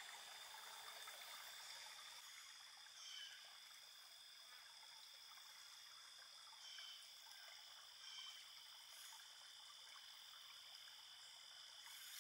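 Near silence: faint river ambience, a light trickle of water with a steady high drone and a few short faint high notes.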